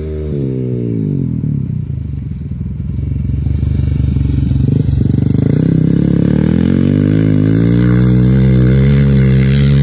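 Rotax 600-engined flat-track motorcycle engine running hard as the bike passes close by. The revs fall early on and turn uneven as it slides through the turn, then the pitch climbs steadily and grows louder as it accelerates away.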